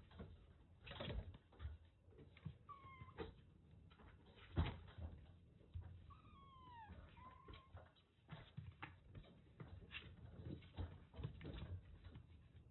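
Kittens playing rough: scuffling, with soft thumps and knocks, the loudest about four and a half seconds in. A kitten gives a short high mew about three seconds in and a longer falling mew around six seconds in.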